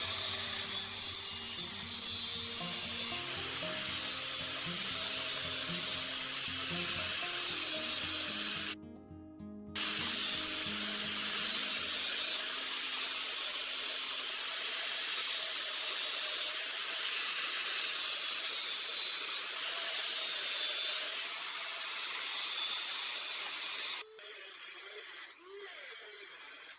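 Steady abrasive rubbing, like a part being sanded or ground, with a brief break about nine seconds in; it stops shortly before the end. Background music plays under it for the first part.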